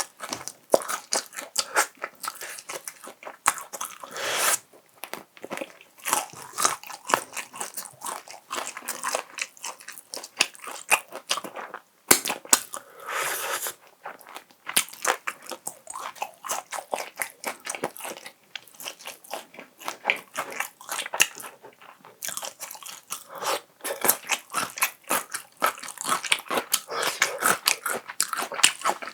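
Close-miked eating: repeated bites and chewing of crispy fried chicken, with dense crunching and crackling of the coating.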